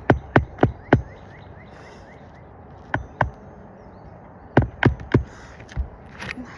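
Hand hammer driving roofing nails into a replacement asphalt shingle on a roof: a quick run of four blows at about three a second, a pause, then a few more scattered strikes.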